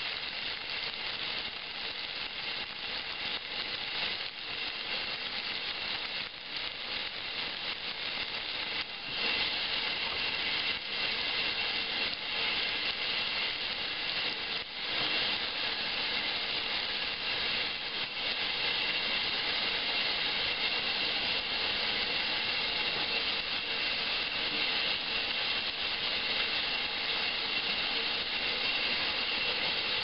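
1963 Maytag A700 washing machine filling with hot water at the start of its wash cycle: a steady hiss of water pouring into the tub, a little louder from about nine seconds in, with a few brief knocks.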